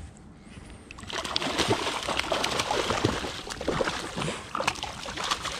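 A small hooked yellowtail kingfish thrashing and splashing at the water's surface: a busy run of splashes that starts about a second in and eases off near the end.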